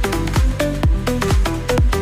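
Electronic dance music with a steady kick drum at about two beats a second under short synth notes.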